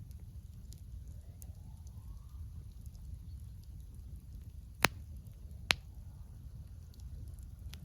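Wood campfire burning with a low steady rumble and scattered small crackles, then two loud sharp pops a little under a second apart just past the middle. A faint rising whistle sounds in the first couple of seconds.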